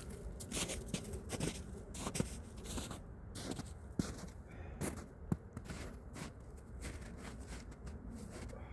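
Movement and handling noise from a person exercising in layered outdoor gear: irregular light clicks and taps with soft rustling and scraping.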